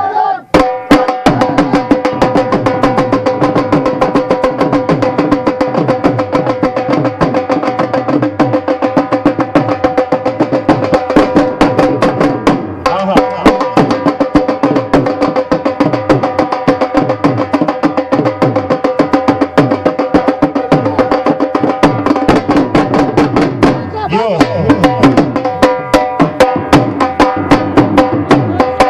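Live folk dance music: fast, steady drumming under a sustained, held melody instrument, with a brief break about 13 seconds in.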